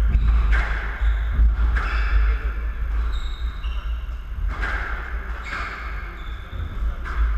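Squash rally: the rubber ball cracks off rackets and the court walls about five times, a sharp hit every one to two seconds, with short squeaks of shoes on the wooden court floor in between.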